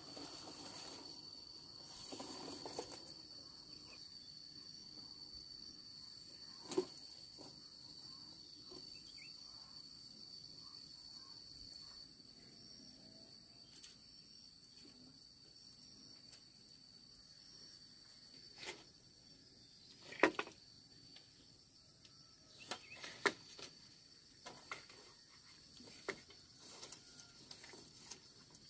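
Steady high-pitched drone of insects in the countryside, with scattered sharp knocks of bamboo poles, most of them in the last third as the fence is handled.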